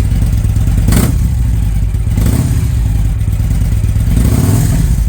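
Victory Judge's V-twin running through its stock mufflers with the baffle plates drilled out, with brief twists of the throttle. The exhaust note has more rumble and is more raw.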